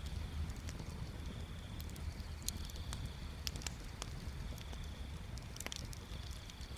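Wood bonfire crackling: scattered sharp pops and snaps, about one or two a second, over a steady low rumble of the fire.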